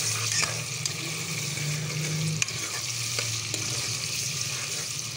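Mutton pieces and browned onions sizzling in hot oil in a pressure cooker while being stirred to brown the meat, the spoon knocking and scraping against the pot a few times. A steady low hum runs underneath.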